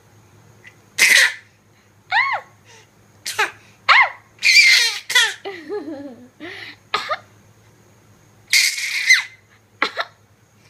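A baby coughing in short bursts, with high little squeals and giggles in between, about ten sounds in all over the stretch.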